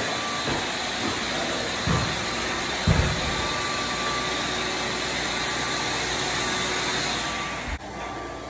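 Vacuum or dust-extraction machine running steadily, a constant rushing noise with a thin high whine. Two dull thumps come about two and three seconds in, and the noise drops a little near the end.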